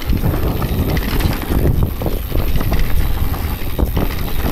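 Orbea Rise electric mountain bike riding down a rocky, loose-gravel singletrack: a steady low rumble with many small knocks and rattles as the tyres and bike go over the stones.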